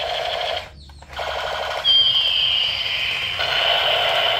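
Electronic sound effects from a battery-powered toy machine gun: a fast, even pulsing buzz of repeated beeps. It cuts out briefly just under a second in and then resumes. About two seconds in, a high tone joins it and slides slowly down in pitch.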